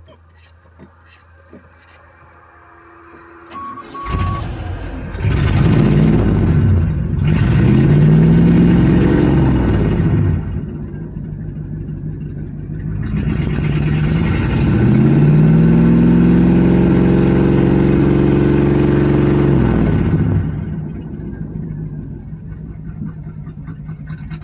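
1985 Chevrolet Suburban's carbureted V8 catching about four seconds in, then revved up and down twice by pumping the gas pedal, its pitch rising and falling, before settling to a lower idle near the end. The gummy Quadrajet carburetor keeps wanting to stall it unless the pedal is pumped.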